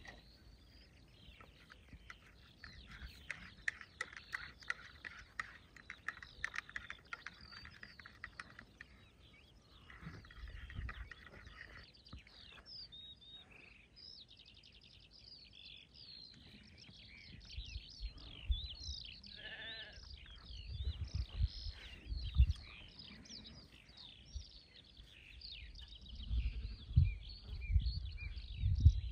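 Faint sheep bleating, with a wavering call about two-thirds of the way in, over small birds chirping. Low rumbles come and go near the middle and the end.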